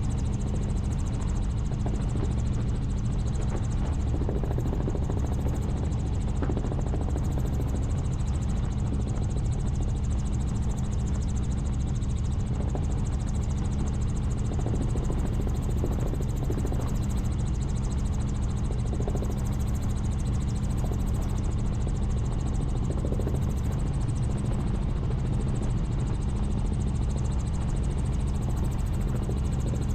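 Helicopter in flight: the rotor and engine drone steadily with a constant low hum.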